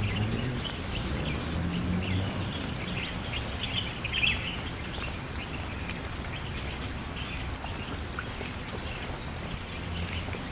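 Steady rain falling, with many small drops pattering, and a low steady rumble underneath. Short high chirping calls come through during the first half.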